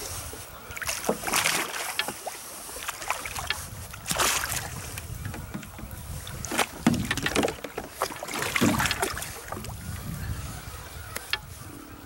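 Irregular bursts of water splashing and sloshing beside a jet ski as a big catfish on a hand-hauled jug line is brought up to the surface.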